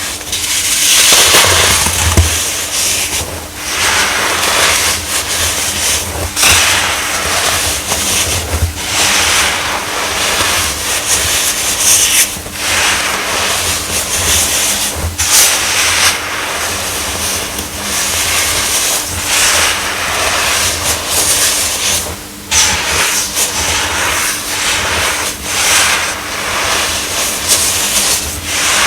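Baking soda being crushed: a continuous, dense crunching and crackling with a few brief pauses.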